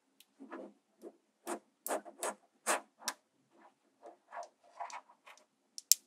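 Small magnetic balls clicking as they snap onto each other and are worked into a disc by hand: a run of separate sharp clicks with soft rattling and rubbing between them, the sharpest click just before the end.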